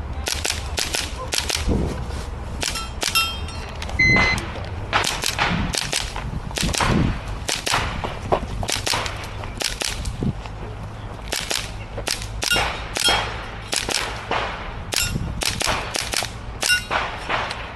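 A string of airsoft gun shots fired at an irregular pace of about two a second, with a few hits ringing briefly on steel targets.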